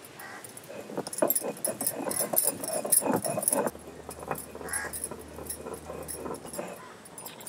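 Stone roller crushing chopped ingredients on a flat stone grinding slab: a rapid run of gritty crunching and knocking strokes for about three seconds, then lighter, sparser rubbing strokes.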